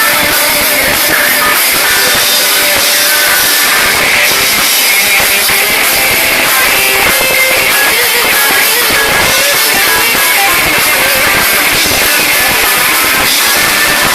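Rock band playing live and loud, with electric guitar and drum kit.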